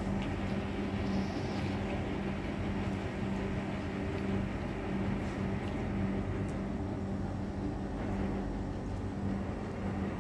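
Steady low mechanical hum with a constant drone that does not change.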